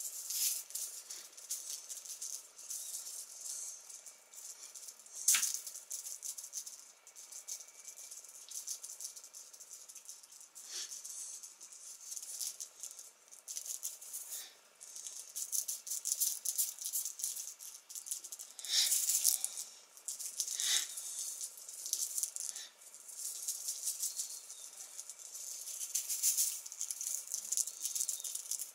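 Crackly rustling of a cat wand toy's red streamer as it is waved over and batted by a cat, with a few sharper, louder rustles.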